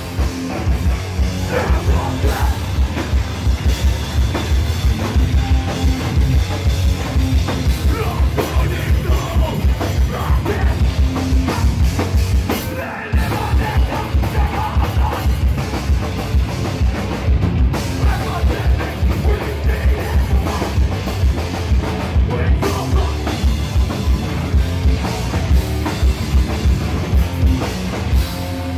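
Live hardcore band playing loud: a fast drum beat under distorted electric guitars and bass. The music drops out for a moment about thirteen seconds in, then comes back in.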